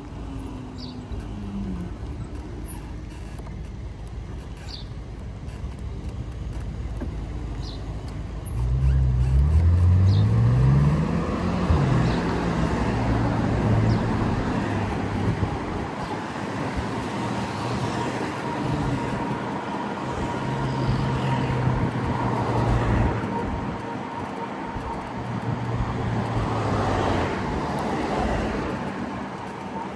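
Ride noise on an electric motorcycle in city traffic: a low rumble of road and traffic. About nine seconds in, it gets louder with a tone rising in pitch, then settles into a steady hum with a thin higher whine.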